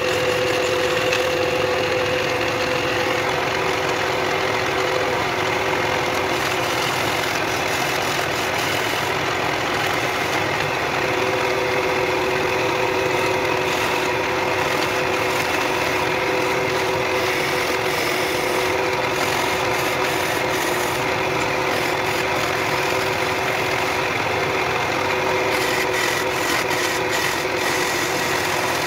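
Wood lathe running steadily while a hand-held turning chisel cuts a spinning wooden bench leg: an even motor hum mixed with the scraping hiss of the tool on the wood.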